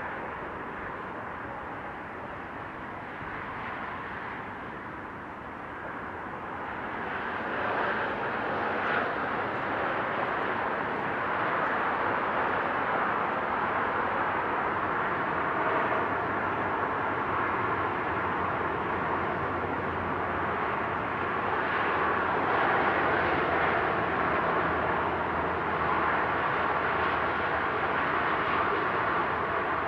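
Steady wash of motorway traffic crossing a high viaduct, the tyre and engine noise of passing vehicles blending into one continuous sound. It grows louder about seven seconds in and stays up.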